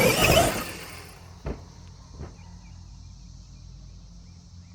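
Traxxas XRT electric RC truck's brushless motor whining, rising in pitch and then fading away over the first second, followed by two sharp knocks about two-thirds of a second apart as the truck comes down from a jump.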